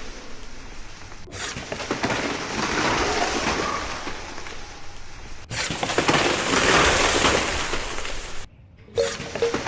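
A saw on a homemade tractor cutting through wood: a steady noisy cutting sound, broken by abrupt jumps about a second in and around five and a half seconds in, and by a brief drop-out near the end.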